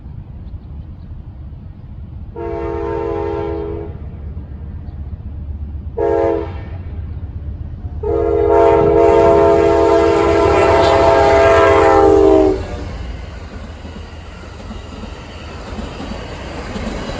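Locomotive air horn sounding three times: a blast of about a second and a half, a short toot, then a long blast of over four seconds, the loudest. Under it, the steady low noise of the train running on the rails.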